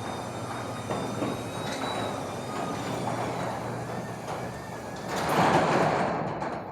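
Commercial roll-up garage door rattling as a Chamberlain belt-drive opener moves it, with a steady motor hum and a faint whine. The rattle swells about five and a half seconds in, then fades near the end as the door stops.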